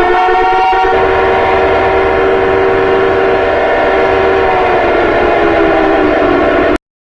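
Loud multi-tone warning siren holding a steady chord of several tones after winding up, the pitch sagging slightly before it cuts off abruptly near the end.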